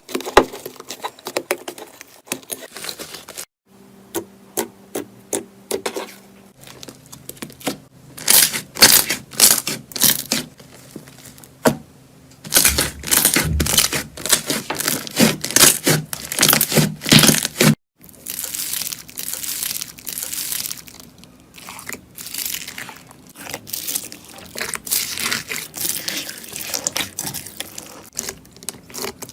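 Slime being squeezed, stretched and poked by hand, giving dense runs of crackling pops and sticky clicks, in several short clips with abrupt cuts between them.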